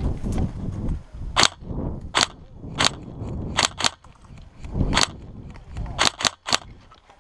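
Airsoft guns firing single shots: about nine sharp cracks at uneven intervals, a few in quick pairs or threes, with wind rumbling on the microphone at the start.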